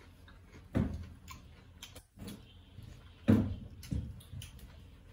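Eating and tableware sounds: two dull knocks, one about a second in and a louder one a little after three seconds, with a smaller knock soon after and small clicks of fingers and dishes in between.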